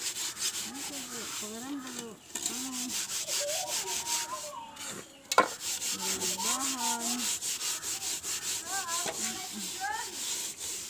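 Hand scrubbing of a soot-blackened metal cooking pot with wet gritty sand or ash: rapid rasping strokes, about five a second, pausing briefly twice. A single sharp knock about five seconds in.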